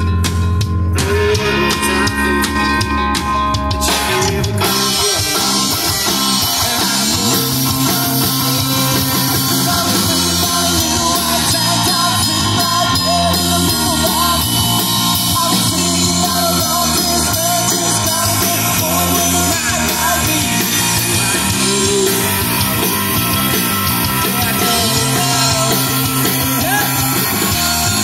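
Live rock cover band playing through QSC CP12 powered PA speakers: electric guitar, bass guitar and drum kit. The music fills out, with cymbals and drums coming up in the high end, about four seconds in.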